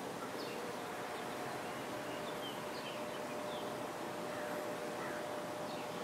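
Outdoor yard ambience: a steady background hiss with small birds giving short chirps here and there, and a faint steady hum underneath.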